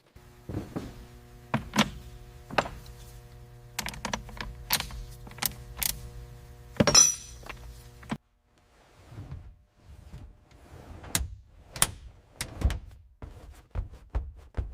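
Workshop handling noises: sharp clicks, knocks and thunks over a steady hum that cuts off abruptly about eight seconds in, followed by a few separate knocks and thuds.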